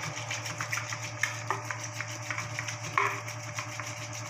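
Wooden hand churner twirled back and forth between the palms in a steel bowl of buttermilk and gram-flour batter, its head clicking and knocking against the bowl at irregular moments, most sharply about three seconds in. A steady low hum runs underneath.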